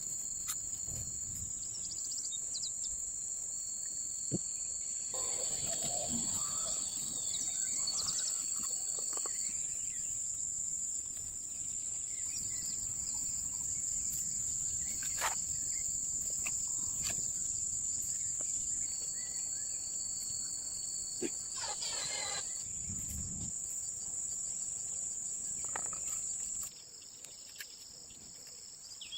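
Insects chirring steadily in a high, continuous chorus, with a few faint knocks here and there.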